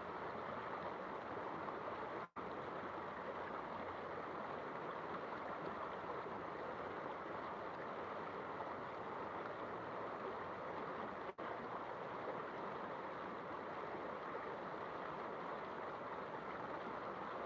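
Steady rushing and babbling of flowing river water, interrupted twice by a split-second dropout.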